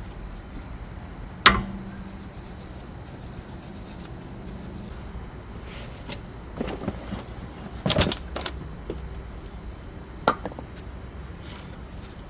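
Tools and parts being handled during a brake job. A sharp clank about a second and a half in rings briefly, a cluster of knocks comes around eight seconds, and another knock comes near ten seconds, all over a low steady hum.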